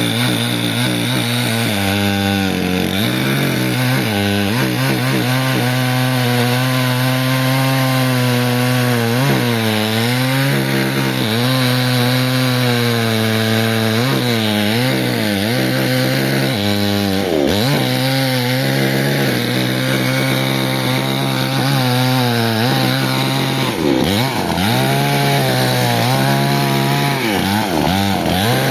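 Chainsaw running at high throttle, cutting through a large log. Its engine note sags and recovers several times under the load of the cut.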